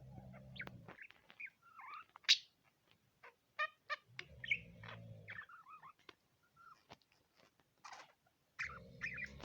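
Budgerigar chattering: a busy run of short chirps, clicks and little gliding warble notes.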